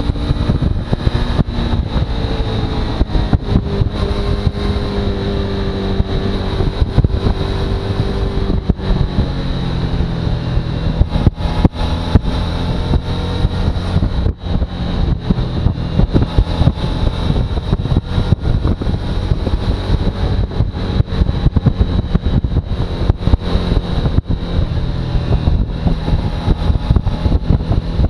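Suzuki V-Strom motorcycle under way, its engine note rising and falling with the revs beneath heavy wind rumble and buffeting on the microphone. A thin steady high whine runs under it all.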